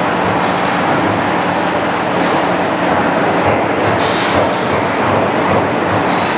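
Automatic punching machine running on steel plate: a steady, loud mechanical clatter over a low hum, with brief hissing bursts three times.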